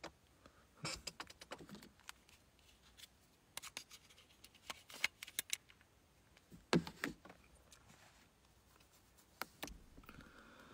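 Faint, scattered clicks and scratches of a smartphone being handled and tapped close to its microphone.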